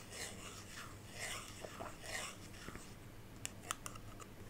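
Soft scratchy rubbing strokes on a small object, several in a row, then a few light clicks about three and a half seconds in.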